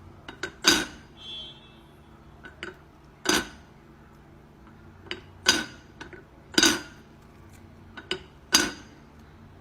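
A string of sharp clinks and knocks at uneven intervals, like hard dishes or utensils being struck, each ringing briefly.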